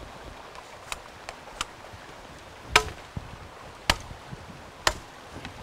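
A machete chopping into woody stems: a few light taps, then three hard strokes about a second apart, the first the loudest.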